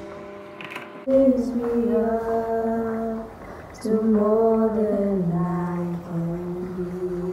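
A woman singing unaccompanied in slow, long-held notes, in two phrases; the second phrase steps down to a lower note partway through.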